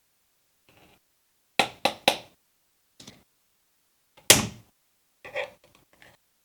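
A series of sharp knocks and thunks: three in quick succession about a second and a half in, the loudest single knock a little after four seconds, then a few lighter ones near the end.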